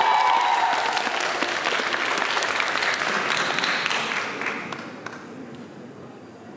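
Audience applauding, the clapping dying away over the last two seconds.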